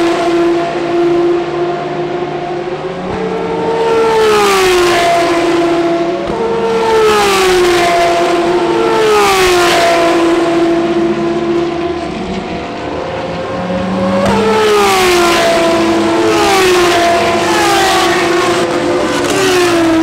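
Ferrari V12 track cars running at speed on a circuit. The loud engine note sweeps sharply down in pitch several times, with steadier stretches between.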